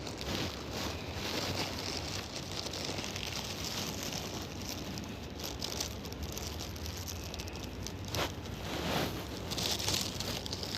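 Plastic dog-waste bag rustling and crinkling as it is handled during clean-up after the dog, with a couple of louder rustles near the end.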